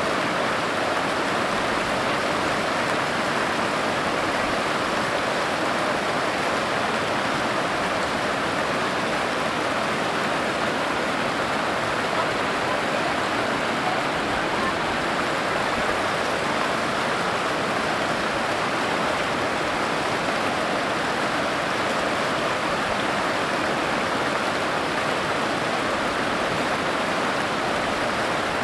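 A boulder-strewn river rushing through rapids: a steady, even rush of white water.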